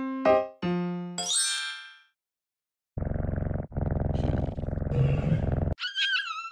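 Cartoon sound effects: a few chime-like ding notes and a quick rising glissando, a pause, then a buzzy rasping effect lasting nearly three seconds, and a short warbling whistle near the end.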